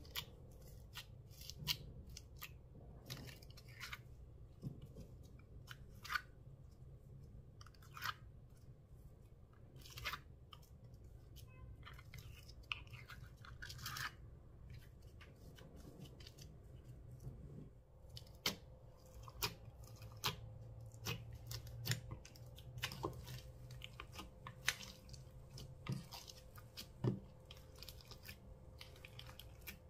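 Hands squishing and kneading thick slime loaded with foam beads: irregular sticky crackles and pops, some sharp and loud.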